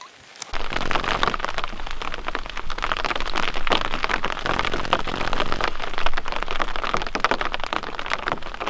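Rain falling steadily on a tent's flysheet, a dense patter of drops starting suddenly about half a second in.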